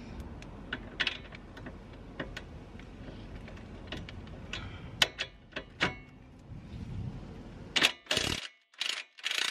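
Scattered metal clicks, clinks and knocks of tools on the lower strut bolt as it is worked out of the front suspension. Near the end come a few louder clatters broken by short silences.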